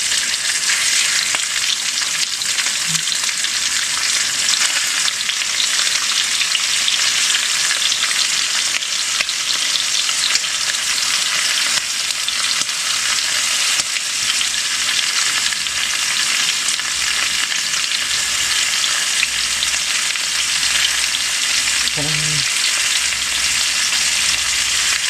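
Seasoned chicken thighs searing skin side down in a hot pan, giving a steady, loud sizzle.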